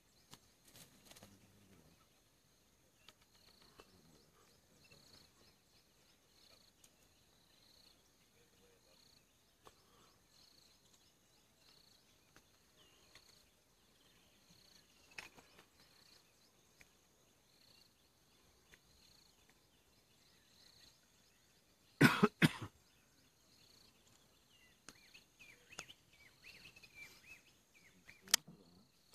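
Quiet bush ambience with a faint insect chirping steadily about once a second. About three quarters of the way through comes a short, loud cluster of sharp noises, and a single sharp click follows near the end.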